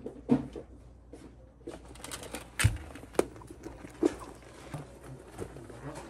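Handling noises from a leather handbag with a chain strap being picked up and put on a shoulder: scattered knocks, taps and rustling, with a louder thump about two and a half seconds in.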